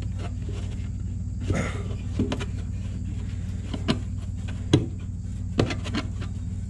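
Hands fiddling with the fuel shutoff valve and sediment-bowl fitting under an old compressor's fuel tank: scattered small metal clicks and knocks, about half a dozen, with a plastic tarp shifting. A steady low hum runs underneath.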